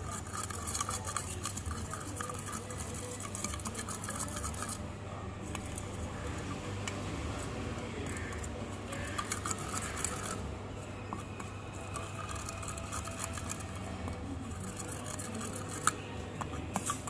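Homemade glitter glue slime being mixed and worked by hand, giving an irregular crackle of small sticky clicks that comes and goes, over a steady low hum.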